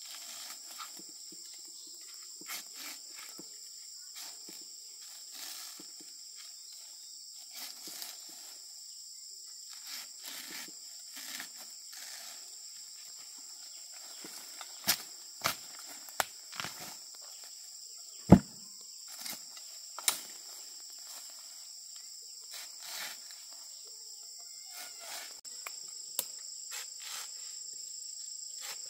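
A steady chorus of insects, holding two high tones throughout. Scattered knocks and rustles come and go; the loudest, a sharp knock, comes about two-thirds of the way through.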